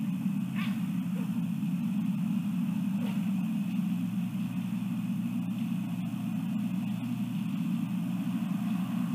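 Steady low rumble of outdoor night background noise, with a faint tone running through it. A couple of faint, brief high sounds come about half a second in and again at about three seconds.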